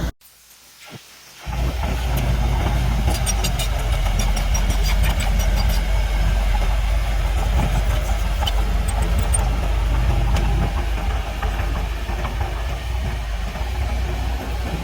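The diesel engine of heavy earthmoving machinery runs steadily with a low rumble, with light metallic clinking for a few seconds. The sound cuts in abruptly about a second and a half in, after a near-silent gap.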